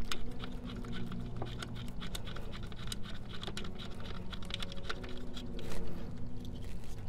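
Small irregular clicks and scratching as a 10 mm bolt is turned in by hand on the evap purge valve's mount, fingers working against plastic and metal, with a faint steady low hum underneath.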